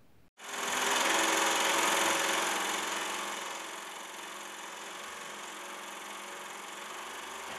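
Film projector running: a steady mechanical whir with a fast clatter. It starts abruptly about half a second in, is loudest for the first three seconds, then settles a little quieter.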